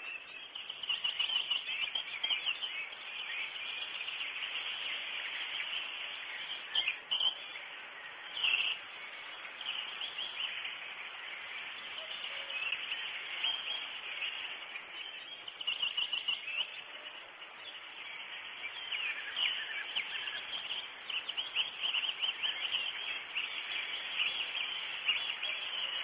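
Birds chirping and calling, a dense, continuous mix of short high notes with a few louder calls standing out.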